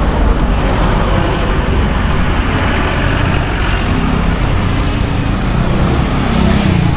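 Street traffic: a steady wash of vehicles passing on the road, with a nearby engine's hum coming up in the second half and loudest near the end.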